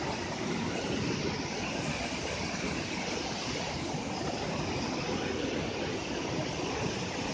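River rapids: water rushing steadily over boulders and through small cascades in a rocky gorge.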